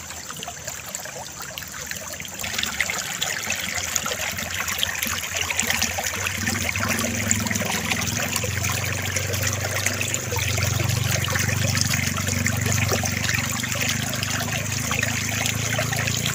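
Water running steadily along a small concrete irrigation channel, a continuous trickling rush that grows louder a few seconds in.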